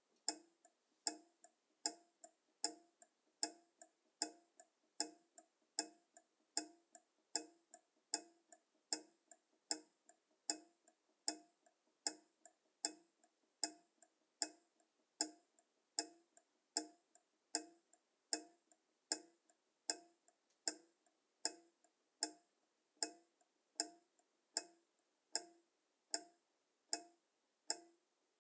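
Pendulum clock ticking steadily, a little over one tick a second, the ticks alternating louder and softer as a tick-tock.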